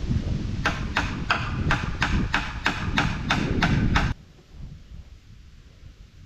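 Hammer driving a nail into wooden framing: about eleven steady blows, roughly three a second, that stop about two-thirds of the way through. Wind rumbles on the microphone under the blows and cuts out suddenly when they stop.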